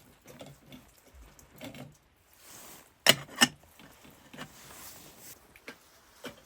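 Scattered light knocks and handling noises, with two sharp clacks close together about three seconds in.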